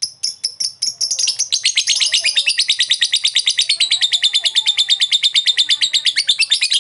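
Blue masked lovebird giving a long 'ngekek' trill. A few sharp, spaced chirps run together about a second in into a fast, rattling string of high notes, about a dozen a second, held for several seconds.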